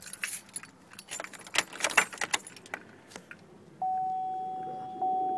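Keys jangling and clicking as the ignition key of a 2004 Chevrolet Avalanche is turned to the accessory position. About four seconds in, the truck's warning chime sounds, a single steady tone that fades and strikes again about a second later.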